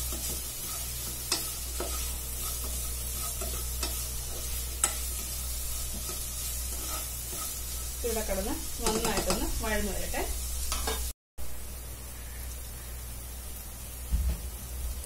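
Sliced red onions sizzling steadily as they fry in coconut oil, stirred and scraped around a granite-coated nonstick pot with a plastic slotted spatula, giving occasional sharp clicks. A short warbling pitched sound comes in around the middle, and the sound cuts out for a moment shortly after.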